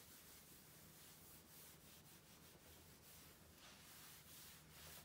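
Faint rubbing of a crumpled wipe being drawn back and forth over a wooden tabletop, in uneven strokes, over a steady low hum.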